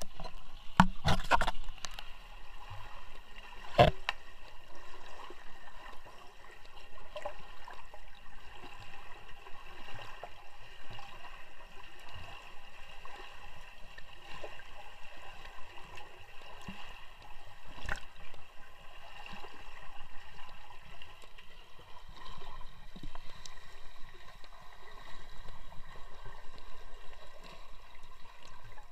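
Muffled water gurgling and sloshing heard through a submerged camera as a swimmer does front crawl, with a faint steady hum underneath. A few sharp knocks come in the first few seconds, the loudest about four seconds in.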